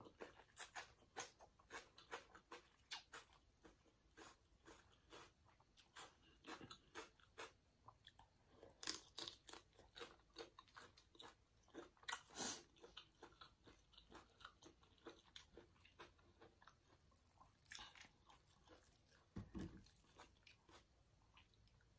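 Faint close-up chewing of a glass-noodle salad with raw vegetables: irregular wet mouth clicks and crunches.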